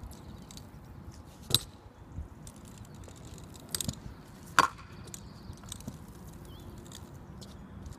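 Stunt scooter hitting and rolling over concrete ramps: a few sharp clacks of the deck and wheels striking the surface. The loudest comes a little past halfway.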